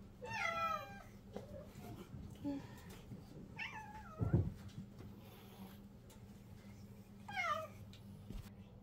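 Domestic cats meowing three times: one just after the start, a longer one about three and a half seconds in, and a short one near the end, each bending in pitch. A low thump comes with the second meow.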